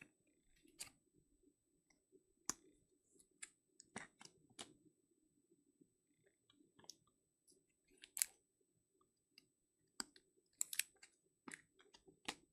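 Light, irregular clicks and taps of handled plastic and card stock: trading cards being slid into rigid plastic top loaders and set down.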